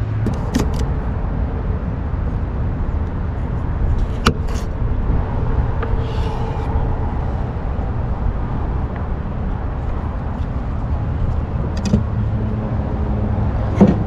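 A fillet knife cutting through a sweet potato and tapping sharply on a bamboo cutting board a few times, over a steady low outdoor rumble.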